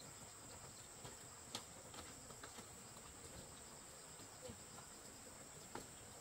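Faint, steady high-pitched drone of insects, with a few soft clicks, about one and a half and almost six seconds in.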